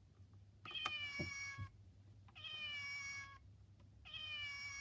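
Recorded cat meow played from a children's sound book's push-button sound module, heard three times in a row, each call about a second long and alike.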